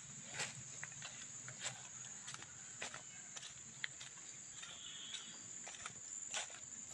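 Footsteps crunching on dry leaf litter, about two steps a second, over a steady high-pitched drone of insects.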